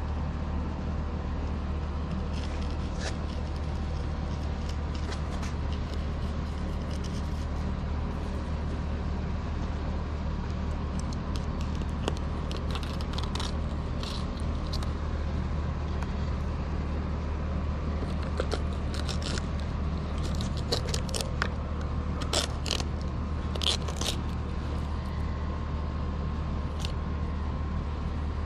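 Fillet knife cutting through a ladyfish on a wooden cutting board: a run of short scrapes and clicks, most of them in the second half, over a steady low hum.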